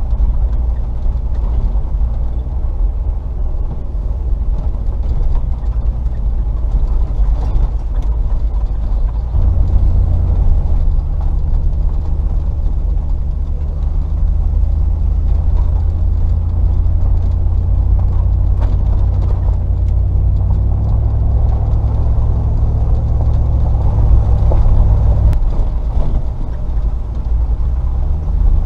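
Range Rover P38's 4.0-litre V8 engine running as the vehicle drives an off-road lane, its note stepping up about a third of the way in, holding steady, and dropping back near the end. A few faint knocks sound over it.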